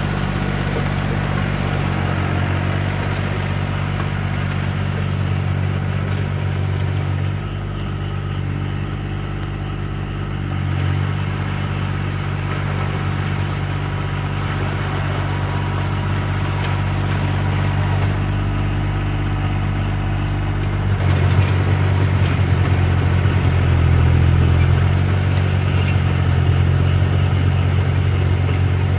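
Small farm tractor's engine running steadily under load while its rear rotary tiller churns a flooded rice paddy. The engine note shifts a few times and grows louder about two-thirds of the way through.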